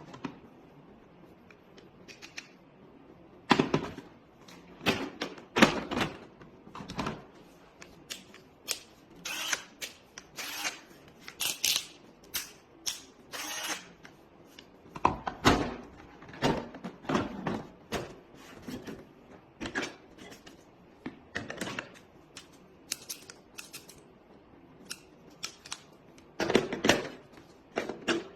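Hand tools from a tool kit being handled: a long run of irregular clicks, clacks and knocks, some in quick clusters, with short pauses between.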